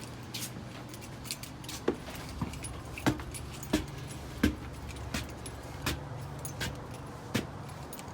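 Metal tools clinking and knocking against pipe fittings in a steady rhythm, about one sharp knock every 0.7 seconds from about two seconds in, over a low steady hum.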